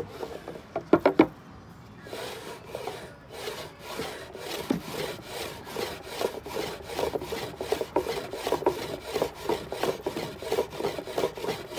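Handmade wooden box wool picker being worked: the spiked sliding top is pushed back and forth over the bed of tines, wood rubbing and rasping in quick, even strokes as it teases apart raw wool. A few sharp knocks come about a second in, before the strokes begin.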